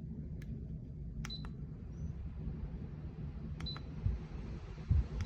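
A steady low rumble with sharp clicks, twice followed by a brief high electronic beep, like a button pressed on an appliance's control panel. A few dull bumps come near the end.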